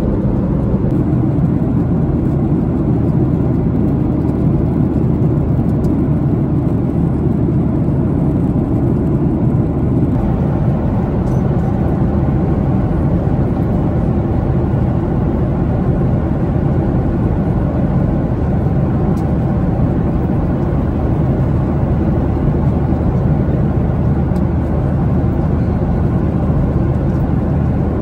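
Steady cabin drone of a Boeing 737-800 in flight: engine and airflow noise heard from an economy seat, mostly a low rumble.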